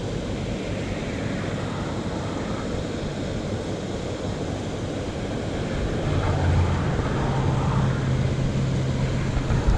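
Wind blowing across the microphone, a steady rushing noise, joined about six seconds in by a low steady hum.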